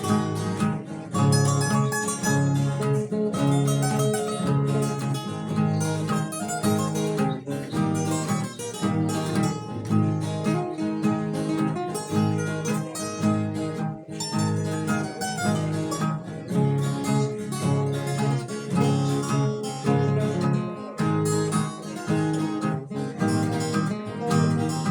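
Papua New Guinea string band music: acoustic guitars strumming a steady rhythm with a picked melody over a prominent bass line, with no singing.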